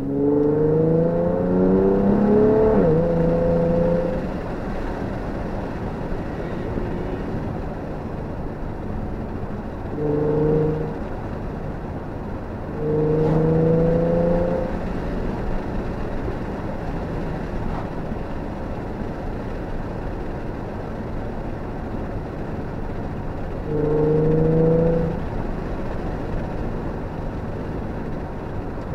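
Nissan 370Z's V6 with a custom exhaust, heard from inside the cabin while driving. The engine note climbs under acceleration for the first few seconds, then settles to a steady cruise with road noise. Three shorter throttle bursts swell the exhaust note about ten, thirteen and twenty-four seconds in.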